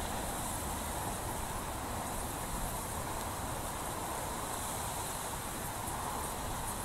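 Steady open-air background hiss with a low rumble underneath, with no distinct events.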